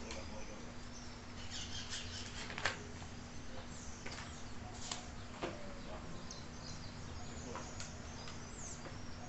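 Faint bird chirps over a steady low hum, with a sharp click near three seconds in and another about five and a half seconds in.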